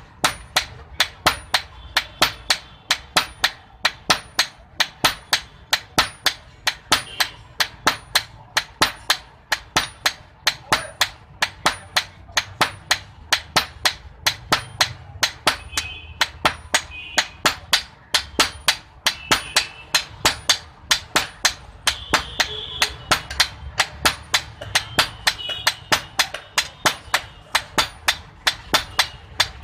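Blacksmith's hand hammer striking iron on an anvil, in a steady rhythm of about three sharp, ringing blows a second.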